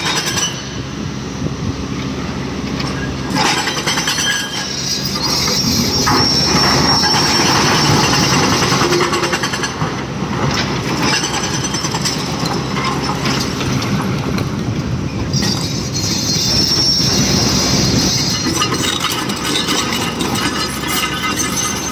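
Heavy earth-moving machinery working: an excavator and dump truck running loud and continuous, with a high metallic squeal that comes in twice.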